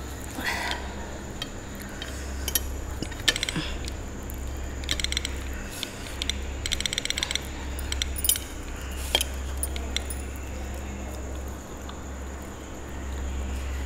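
Fingers and metal rings clinking and scraping on a steel plate as puri is torn and mixed into mutton curry by hand, in short bursts of rapid clicking with single clicks between.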